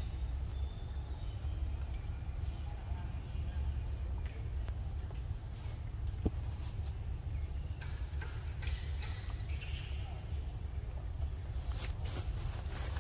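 Steady chorus of insects droning in the undergrowth as two even, high-pitched tones, over a constant low rumble.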